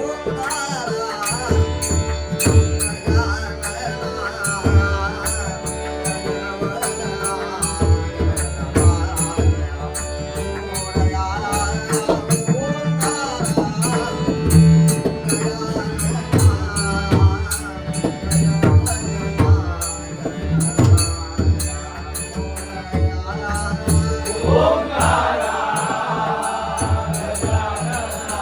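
Traditional Konkan devotional bhajan: singing over a hand drum, with small hand cymbals clicking steadily on the beat and a sustained drone underneath. Near the end a louder voice enters on a rising line and holds a high phrase.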